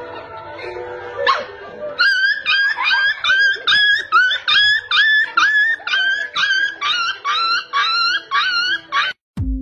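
A puppy yelping over and over in high, sharp cries, about two a second, as a crab's claw clamps onto its mouth; the cries begin about two seconds in and stop just before the end. Background music plays underneath.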